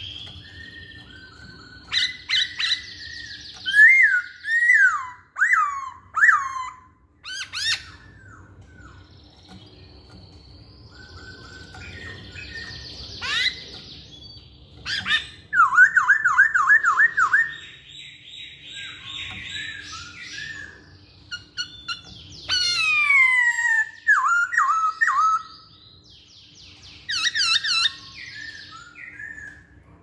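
Black-throated laughingthrush (poksay hongkong) singing in varied phrases: clear whistled notes that slide downward, a quick run of repeated notes about halfway through, and long falling glides. Bursts of harsher chatter and short pauses fall between the phrases.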